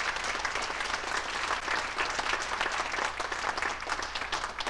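Theatre audience applauding: many hands clapping together in a steady, dense patter.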